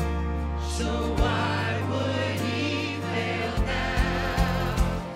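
Church praise team singing a contemporary worship song together over instrumental backing with a steady bass, with a quick run of beats in the second half.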